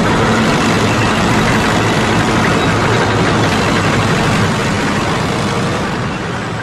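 Heavy tank engine idling steadily with a deep hum. It eases off slightly near the end.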